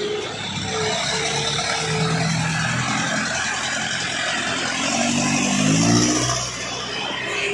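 Diesel engine of a heavily loaded Hino Dutro cargo truck pulling uphill, its pitch rising as it revs up about five seconds in, loudest around six seconds.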